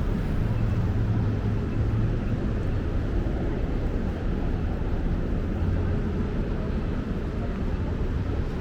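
Steady low rumble of city traffic and street noise, with no distinct events.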